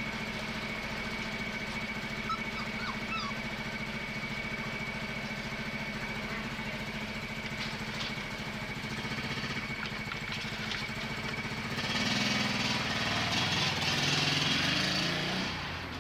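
A small engine drones steadily throughout. About twelve seconds in, louder rustling and scraping of cardboard starts and lasts a few seconds as a puppy scrambles over the rim into a cardboard box.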